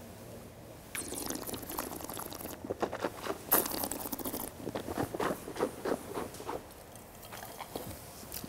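A person tasting red wine: sipping and slurping it, with a series of short wet mouth sounds and small clicks in uneven bursts.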